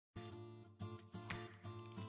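Quiet background music, with a new note or chord about every half second.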